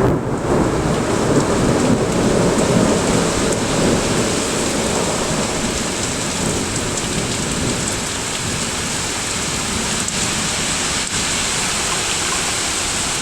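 Heavy rain pouring down steadily in a thunderstorm, with a rumble of thunder over the first few seconds that fades.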